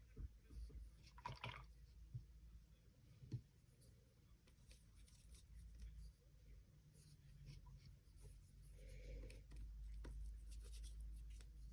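Near silence with faint small clicks and rustles of art supplies being handled, sorted through in search of a black paint.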